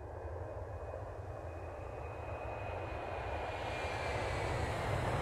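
Sound effect for the dragon flying in: a deep rumble with a rushing noise over it, growing steadily louder, with a faint high whine that slowly sinks in pitch.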